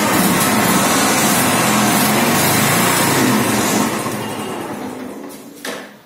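Motorcycle engine running steadily on its first electric start after a new starter sprag clutch was fitted, starting smoothly. About four seconds in it is switched off and winds down to a stop.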